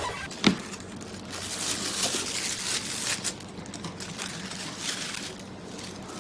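A single knock, then about two seconds of rustling and crinkling handling noise that fades into a low background hum.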